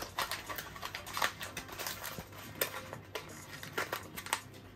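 Handling noises from small 3D-printer parts and their plastic packaging on a wooden desk: scattered light clicks and rustles, a few sharper ones about two and a half and four seconds in.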